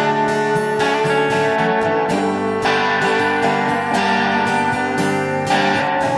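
Live folk band playing: strummed acoustic guitar and electric guitar with bowed violin. A long sustained note slowly rises in pitch across the passage.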